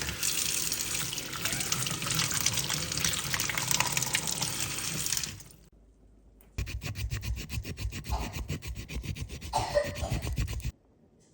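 Water running steadily for about five seconds. After a short pause comes a fast, rhythmic scraping of several strokes a second, lasting about four seconds and stopping abruptly.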